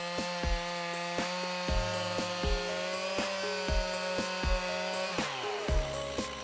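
Gas chainsaw running as it cuts into a small cedar trunk, under background music with a steady beat.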